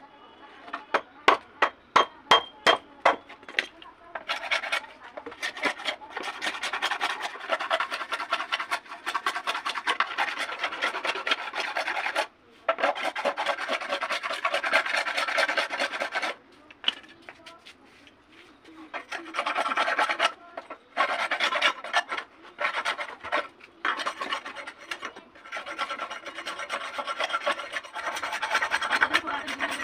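Hand tools working a dry bamboo tube: a quick run of sharp taps in the first few seconds, then long stretches of rapid back-and-forth scraping strokes on the bamboo, with a couple of short pauses.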